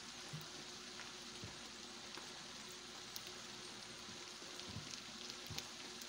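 Machaca (shredded dried beef) with bell pepper, tomato and onion frying in a stainless skillet: a faint, steady sizzle with a few small pops.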